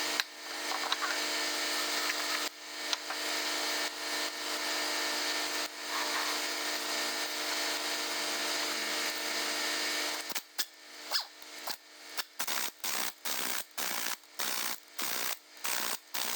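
A power tool runs steadily with a motor whine for about ten seconds, then is blipped on and off in short bursts about twice a second.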